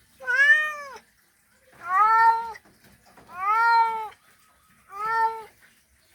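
Male cat's mating call: four drawn-out meows, each rising then falling in pitch, about a second and a half apart.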